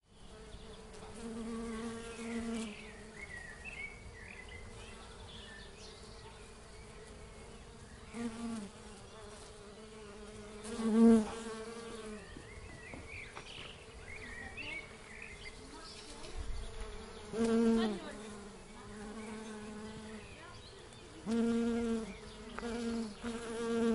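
Honeybees buzzing: a droning hum that swells and fades several times as bees fly close past the microphone, the loudest pass about halfway through, its pitch dipping as each bee goes by.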